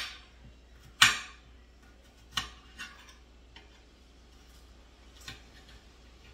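Kitchen knife slicing garlic cloves on a cutting board: several separate sharp knocks of the blade hitting the board, the loudest about a second in, then a few fainter ones.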